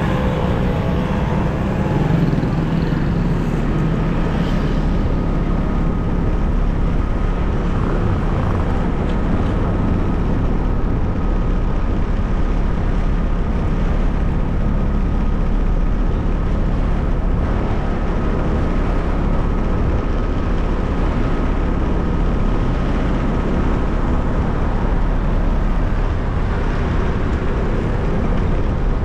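Steady rumble of a vehicle on the move, with a faint steady whine through most of it.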